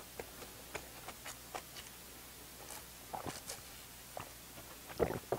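Close-up eating sounds: faint, scattered wet mouth clicks and smacks of chewing bread, then a drink from a milk carton with a few louder gulps about five seconds in.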